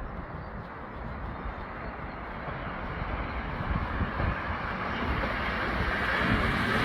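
A train approaching, its rumble and rail noise growing steadily louder.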